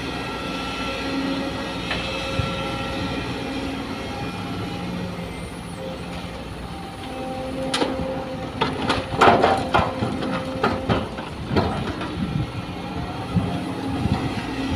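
Sumitomo hydraulic excavator's engine and hydraulics running steadily as the loaded bucket swings over. About eight seconds in, a bucketload of soil and rocks is dumped into the dump truck's steel bed, a clatter of knocks and thuds lasting a few seconds.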